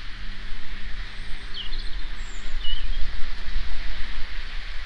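Outdoor garden sound: a steady low motor hum that cuts out near the end, over a low rumble and hiss, with a few short bird chirps about halfway through.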